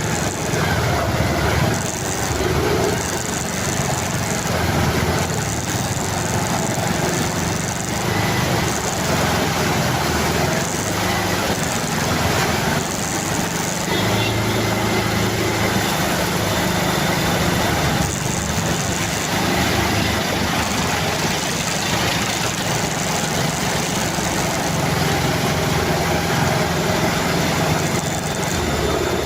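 A motor vehicle's engine running steadily under a constant rushing noise, with no pauses.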